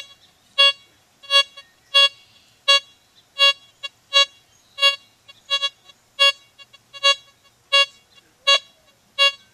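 Blisstool LTC64 metal detector beeping as its coil sweeps back and forth over a small buckle buried 18.5 inches below it: about fourteen short, clear tones, roughly one every 0.7 seconds, a few of them doubled. The detector is still picking up the target at this depth with discrimination set to 3.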